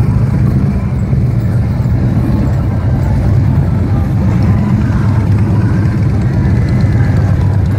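Motorcycle engines running at low speed, a steady low rumble.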